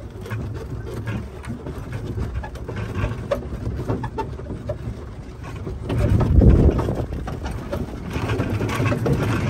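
Small utility cart's motor running as it drives over grass and dirt, a steady low rumble that swells louder about six seconds in.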